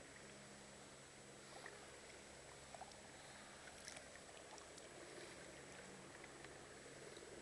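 Near silence: a faint steady hiss and low hum, with a few faint ticks.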